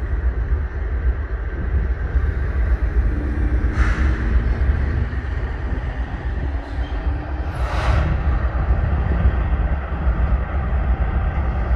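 Steady low rumble of diesel locomotives in a rail yard, with two short hisses about four and eight seconds in.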